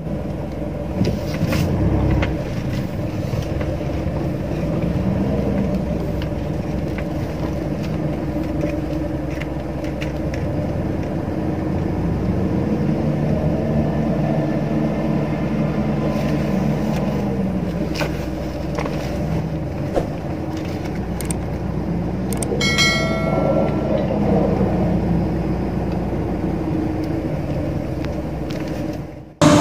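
4x4 pickup engine revving up and down repeatedly as it labours through deep mud ruts, heard from inside a following vehicle's cab, with scattered knocks and rattles from the rough ride.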